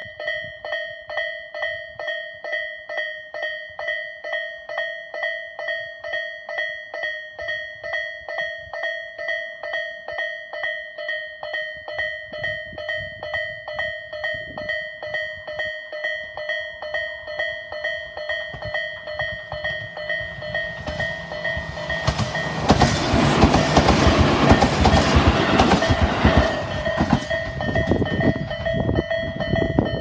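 Japanese level-crossing warning bell ringing steadily, a little more than two strokes a second. A Tobu 800-series three-car electric train approaches, rises into a loud rumble as it passes the crossing for about five seconds, and fades as the bell keeps ringing.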